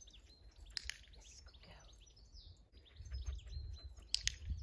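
Garden birds chirping and singing, many short quick calls throughout. A low rumble of wind on the microphone sets in during the second half, and a few sharp clicks stand out, the loudest a pair about four seconds in.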